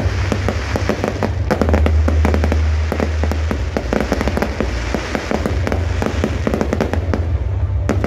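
Aerial fireworks display going off: a dense, irregular run of crackles and pops, several a second, over a steady low rumble.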